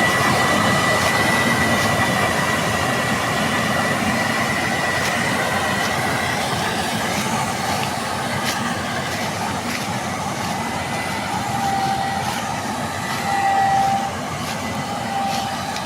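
Combine harvester running steadily: a continuous mechanical roar with a steady high whine through the first half, later broken whining tones and a few sharp clicks.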